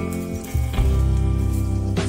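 Background music: held chords over a deep bass, changing about half a second in.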